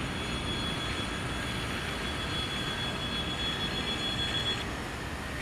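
Freight train of covered hopper wagons rolling past, a steady rumble of wheels on rails. Over it runs a thin, steady, high-pitched wheel squeal that cuts off suddenly near the end.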